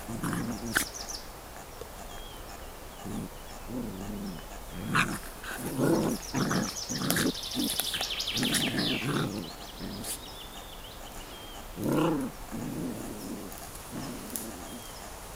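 Golden retriever puppies play-growling in short, gruff bursts while wrestling, the loudest bursts about midway and again near the end.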